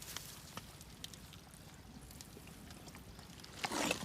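Faint trickle and slosh of shallow muddy water as hands grope in it, with small scattered clicks; the splashing gets louder about three and a half seconds in.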